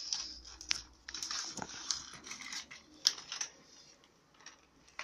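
Packaging of a Japanese DIY candy kit handled and opened by hand: irregular crinkling rustles and sharp clicks that die away over the last second or so.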